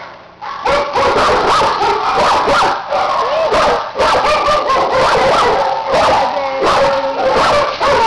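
Several kenneled dogs barking and yelping at once: a dense, loud, overlapping din of short calls at different pitches, which picks up about half a second in.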